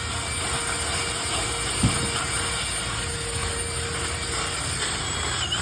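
A power tool running steadily with a faint constant whine, and one sharp thump about two seconds in.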